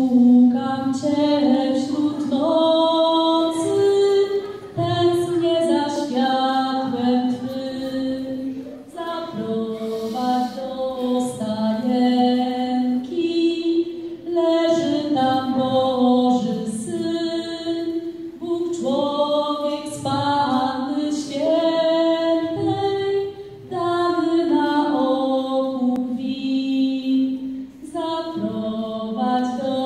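A girl singing a solo melody into a handheld microphone, holding each note briefly and pausing between phrases.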